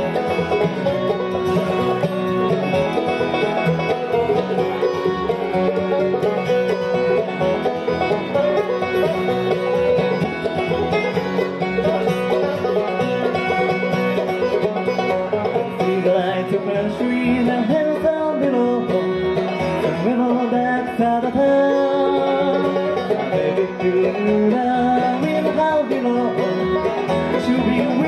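Bluegrass band playing live: fiddle, banjo, mandolin, acoustic guitar and upright bass together in a continuous, steady-tempo tune.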